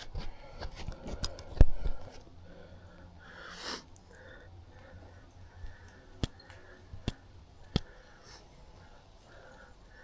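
Mountain bike knocking and rattling, in a cluster through the first two seconds with the loudest knock about a second and a half in, then a few single sharp clicks later on.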